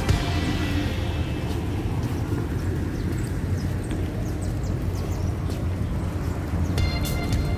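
Town street ambience: a low, uneven rumble of passing cars and wind on the microphone. Background music fades out in the first second or so and comes back near the end.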